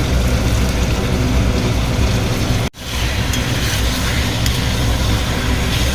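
Chicken pieces sizzling in hot mustard oil with fried onions in a pan, salt just added, as a steady loud frying noise. The sound cuts out for an instant about halfway through, then carries on.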